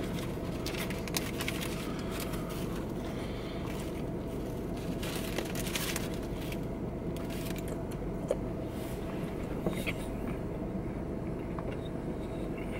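Steady low hum inside a car cabin, with scattered crinkles of a paper sandwich wrapper and a man chewing mouthfuls of a crispy chicken sandwich.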